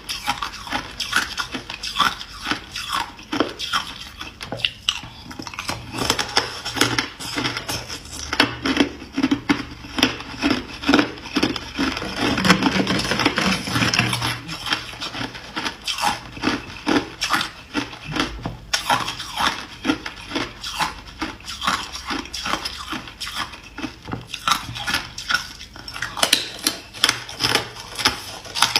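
Hard clear ice being bitten and chewed: a dense, continuous run of sharp crunches and cracks.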